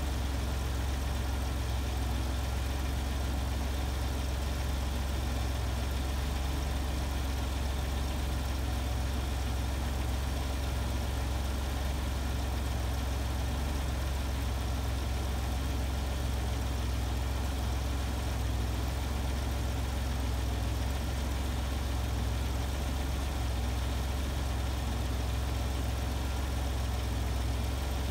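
Citroën XM engine idling steadily, with no pressure-regulator click through the whole stretch. The hydraulic regulator is holding pressure for a long interval on a freshly replaced main accumulator sphere, the sign of a healthy sphere.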